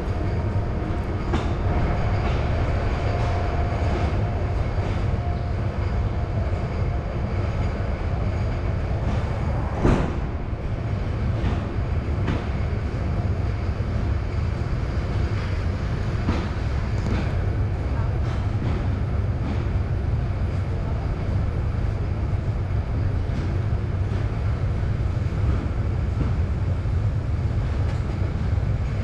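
Passenger train running on the rails: a steady low rumble with scattered clicks of the wheels over rail joints, and one sharp knock about ten seconds in.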